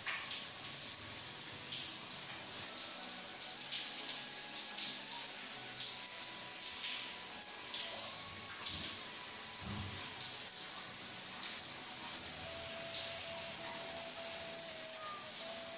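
Shower water running steadily from a handheld shower head, hissing and splashing onto a person's body.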